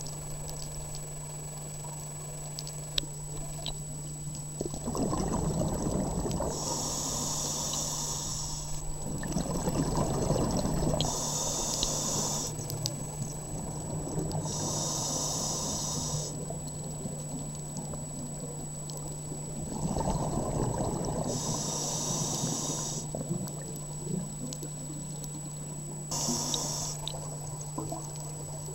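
Scuba regulator breathing underwater: exhaled bubbles rumbling for a couple of seconds at a time, alternating with short high hisses of inhalation, several breaths over the stretch. A steady low hum and a thin high whine run underneath, typical of a camera in an underwater housing.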